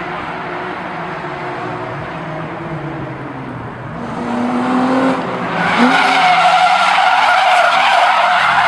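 A car drifting: its engine revs up and down, then the tyres squeal loudly and steadily from a little past halfway as the car slides.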